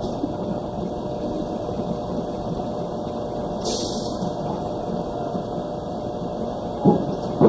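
Steady mechanical hum and rumble, with a brief hiss about four seconds in and a short knock near the end.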